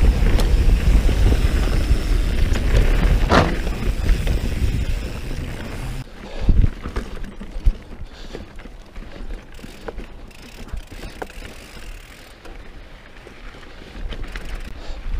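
Mountain bike rolling over dirt and rock singletrack: a loud, steady rumble and rattle of tyres and frame for the first few seconds, with one sharp knock. It then turns quieter with scattered knocks and clunks as the bike picks over rocks, and the rumble picks up again near the end.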